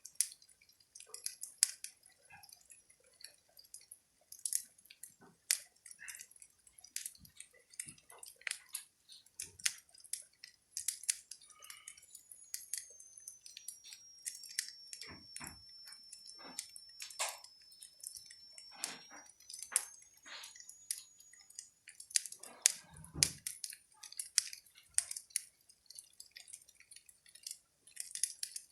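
Wood fire in a fireplace crackling, with irregular sharp pops and snaps. A faint high whistle holds for several seconds in the middle, and a duller thump comes about two-thirds of the way through.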